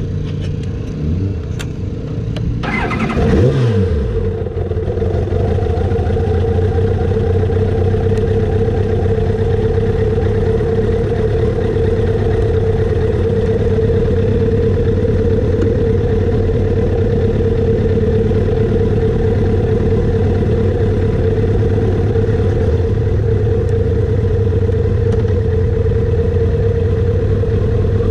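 Kawasaki ZX-7R's inline-four engine running on a short rev about three seconds in that falls back quickly, then idling steadily.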